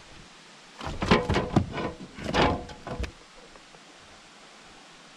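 Clattering knocks and rattles of a fish and gear being handled against a plastic fishing kayak, a cluster of sharp strikes lasting about two seconds starting about a second in.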